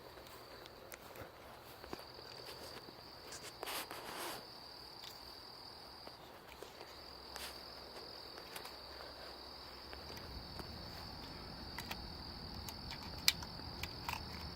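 A steady high insect chirring, with scattered footsteps on the ground and a single sharp click near the end.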